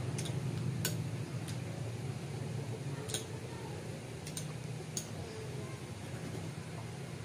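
Spoon and chopsticks clicking against ceramic soup bowls while eating noodles, a handful of short, sharp clinks spread over the first five seconds, over a steady low hum.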